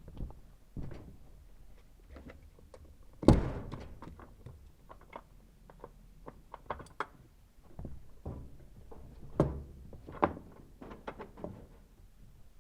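Scattered clicks and knocks of tie-down straps being released and unhooked from a mower, with one loud thunk about three seconds in and two more sharp knocks near the ten-second mark.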